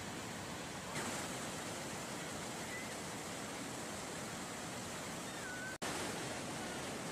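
Steady rushing noise of water, with a small jump in level about a second in and an instant dropout just before six seconds in, where the audio is cut.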